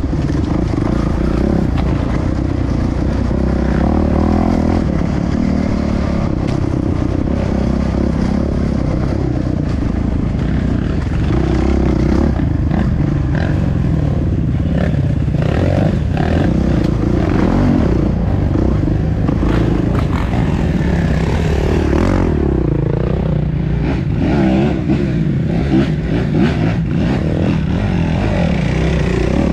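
Off-road trail motorcycle engine running as the bike is ridden, its pitch rising and falling with the throttle, with frequent knocks and rattles over the top.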